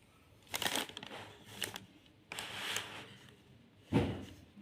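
Ceiling fan packaging being handled: several short rustling, rubbing scrapes, then a heavier knock about four seconds in.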